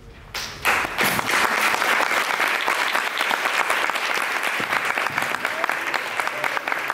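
Audience applauding at the end of a dance piece. The clapping breaks out about half a second in and goes on loud and dense.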